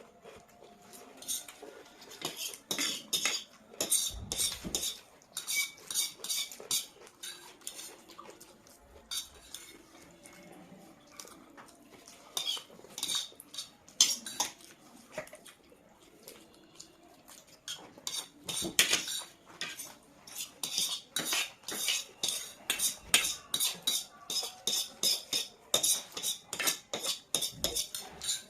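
Cutlery clinking and scraping against a plate while chowmein is eaten, in uneven runs of sharp taps that come quicker and closer together near the end.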